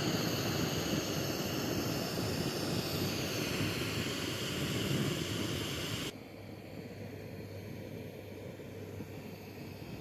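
Steady rush of flowing river water, which drops suddenly to a quieter, duller rush about six seconds in.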